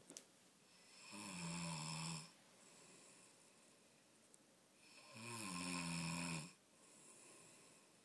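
A sleeping man snoring: two long snores about four seconds apart, each starting a little higher in pitch and settling to a steady lower tone, with quiet breathing between.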